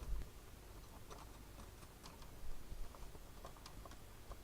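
Scattered faint light clicks and taps, irregularly spaced, from small tools and parts being handled while working at components on a vintage TV's circuit board.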